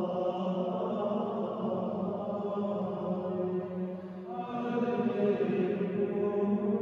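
Choir of monks chanting the Vespers office in unison, long held notes moving slowly in pitch. A little after four seconds the chant dips briefly, then a new, louder phrase begins.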